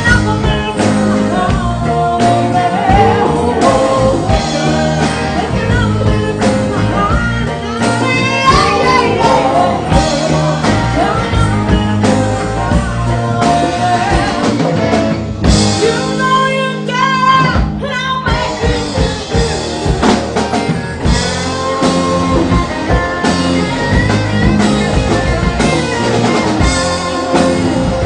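Live blues-rock band with a woman singing lead over drum kit, electric guitar and bass. About two-thirds of the way through, the bass and drums drop out for a couple of seconds while the voice carries on, then the band comes back in.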